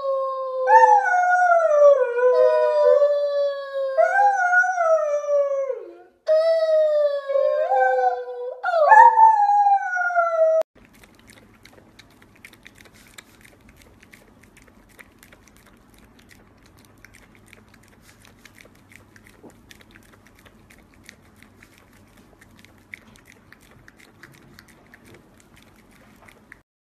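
Large white fluffy dog howling, about six long howls that each rise and then fall in pitch. About ten seconds in it cuts off to faint, quiet clicking and lapping from a small dog licking at a glass.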